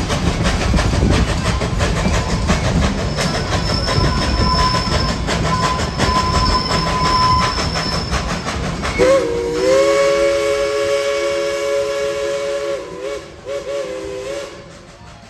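The clattering rumble of a narrow-gauge steam train running, its cars clicking over the rail joints. About nine seconds in, the locomotive's steam whistle sounds a chord in one long blast of about five seconds, wavering near its end, while the running noise dies away.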